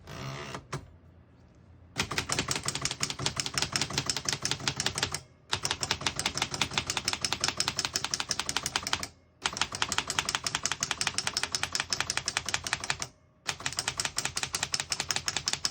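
1938 Remington Cadet portable manual typewriter being typed on: rapid clacking keystrokes as every key is struck in turn, in four quick runs with brief pauses between them.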